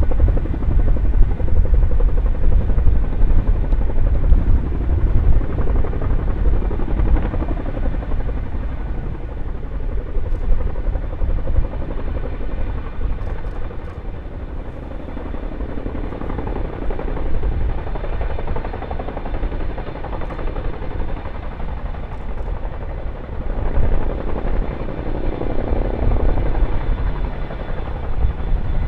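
RAF Boeing Chinook tandem-rotor helicopter hovering low, its rotors beating with a steady deep rumble. The sound eases a little midway and grows louder again over the last few seconds.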